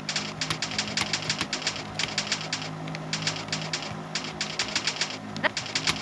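Computer keyboard keys being typed fast, in quick runs of clicks with short pauses between words, over a steady low hum.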